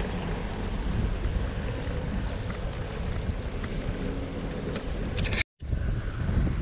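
Wind buffeting the microphone, heard as a steady low rush. The sound cuts out completely for a moment about five and a half seconds in.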